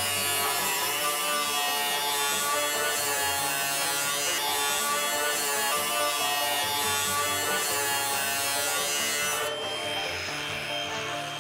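Cordless angle grinder with a cut-off disc cutting through a steel drum: a steady motor whine with a loud hiss that stops about nine and a half seconds in. Background music plays underneath.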